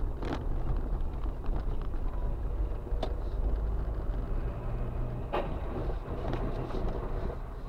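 Low, steady rumble of a car's engine and tyres heard from inside the cabin through a dashcam microphone, with three sharp clicks spread through it.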